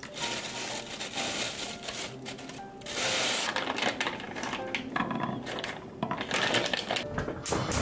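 Irregular kitchen handling noises, scraping and shuffling sounds in uneven bursts with a louder stretch about three seconds in, over soft background music.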